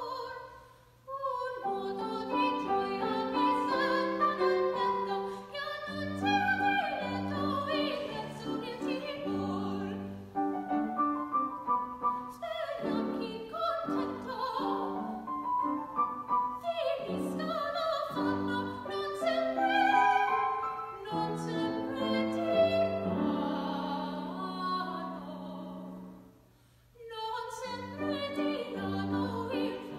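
Classical singing in operatic style with piano accompaniment, the voice held in sustained, wavering notes over piano chords. The music breaks off briefly twice, about a second in and again a few seconds before the end, between phrases.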